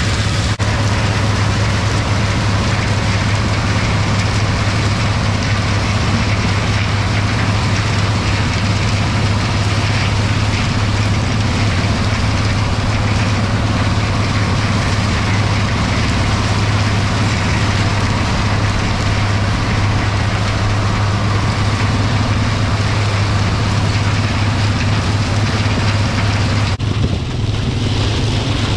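International Harvester 1256 tractor's turbocharged six-cylinder diesel running steadily under load with a strong low drone, together with the noisy whirr of a PTO-driven International 40 flail stalk chopper shredding standing corn stalks.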